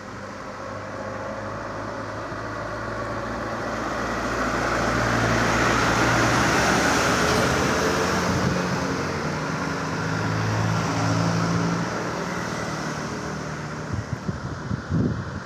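Heavy trucks driving past: engine hum and tyre noise swell to a peak about six seconds in, ease off, rise again near eleven seconds and then fade. Wind buffets the microphone in thumps near the end.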